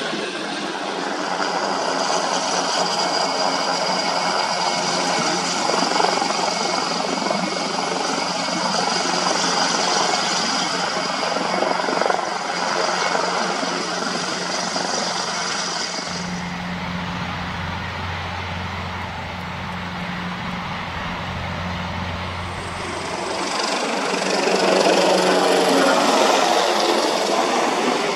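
Eurocopter EC725 helicopter hovering and flying, its rotor and twin turboshaft engines running with a steady high turbine whine. The sound shifts about sixteen seconds in to a lower hum and grows louder near the end.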